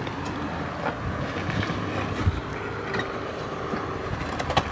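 Toyota FJ Cruiser's 4.0-litre V6 running steadily at low revs as it crawls over a rocky track, with a few sharp knocks of rock under the tyres.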